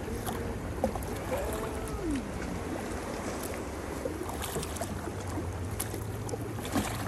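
Wind on a phone microphone with water lapping and splashing as a tandem sit-on-top kayak is paddled, the paddle blades dipping now and then.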